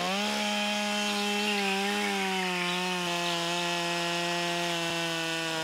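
Two-stroke chainsaw held at full throttle while cutting a log: one steady high engine note whose pitch sags slowly as the chain bites into the wood.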